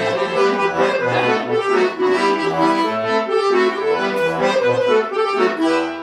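Accordion playing a tune: sustained chords over low bass notes that step from one to the next.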